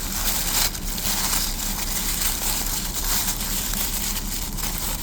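Packaging from a toy blind box crinkling and crackling steadily as it is torn open and handled.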